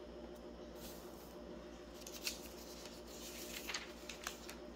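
Faint rustle of thin Bible pages being turned, a few soft brushes over a steady low room hum.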